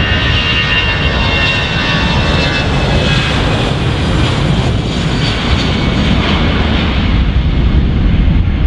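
Airbus A320-family airliner's twin jet engines running as it rolls along the runway: a high whine over a steady rush, the whine fading about halfway through and a deeper rumble growing louder near the end.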